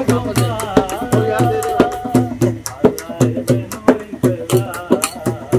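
Punjabi/Saraiki folk song: a hand drum played with the hands beats a steady quick rhythm, with sharp metallic clicks from a steel tumbler tapped along, and a sung voice holds one long note in the first half.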